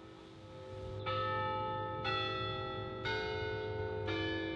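Orton Hall tower chime bells playing a slow tune: after a quiet first second, one bell is struck about every second at a changing pitch, each note ringing on under the next.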